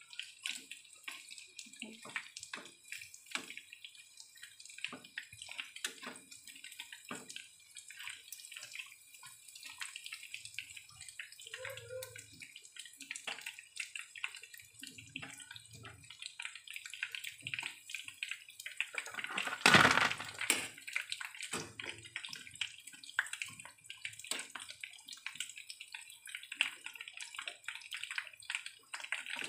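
Battered chicken pieces frying in hot oil in a pan: steady sizzling with dense crackling pops, and one louder burst about twenty seconds in.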